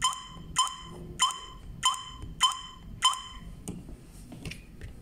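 The PG103 alarm host's touch keypad beeping once per key press as a phone number is keyed in: six identical short beeps about 0.6 s apart, then a few faint taps near the end.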